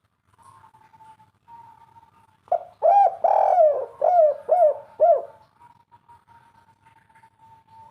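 Spotted dove (tekukur) singing one loud cooing phrase of about six notes, each falling in pitch, beginning about two and a half seconds in.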